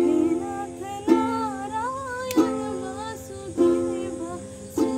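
A woman singing a slow melody while strumming a ukulele, one chord about every second and a quarter.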